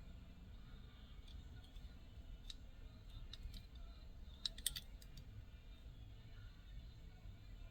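Faint scattered clicks and taps of a die-cast toy car being handled, with a quick cluster of clicks about four and a half seconds in.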